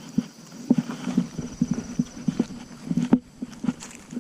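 Handling noise from a landed largemouth bass being held and moved about: many irregular, dull knocks and thumps.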